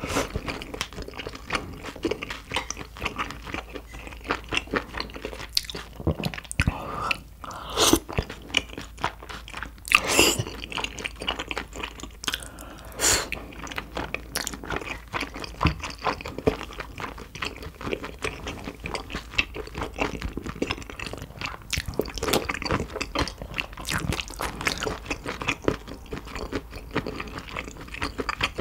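Close-miked eating: a person chewing and biting food in a steady, irregular run of wet crunches and mouth clicks, with a few louder sharp clicks about eight and ten seconds in.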